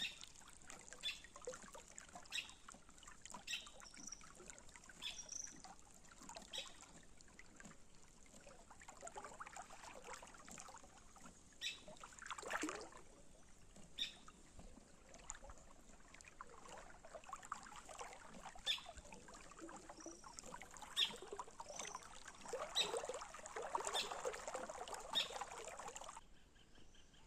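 River ambience: water trickling and lapping, with short bird chirps every second or so and a steady high-pitched hiss. The water grows louder in the second half and the whole sound cuts off abruptly near the end.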